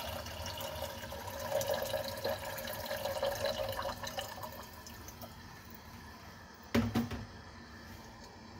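Water pouring in a stream into a small metal saucepan, splashing and bubbling into the water already in it, then tapering off about five seconds in. A short knock sounds near seven seconds.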